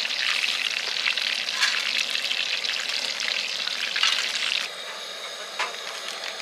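Battered food deep-frying in hot oil, a dense crackling sizzle. It drops away abruptly about two-thirds of the way through, leaving a quieter hiss with a few clicks.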